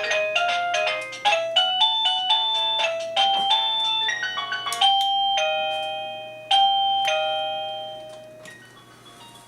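Plug-in receiver of a 52-chime wireless doorbell playing one of its electronic chime tunes: a quick run of beeping notes, then slower held notes, the last one fading out near the end.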